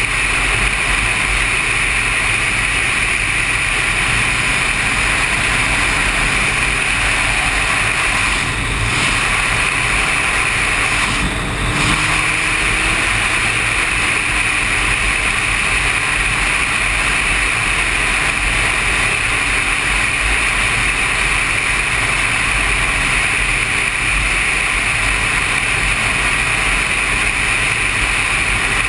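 Sport motorcycle under way on a road: a steady rush of engine and wind noise that dips briefly twice, about nine and twelve seconds in.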